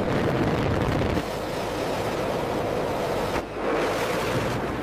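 Jet engine noise: a steady, dense rush that dips briefly about three and a half seconds in.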